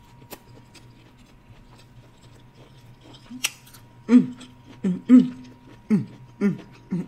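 A person chewing cabbage with closed lips, faint wet mouth clicks, then from about four seconds in a quick run of about six short closed-mouth "mmm" hums, each falling in pitch: sounds of enjoying the food.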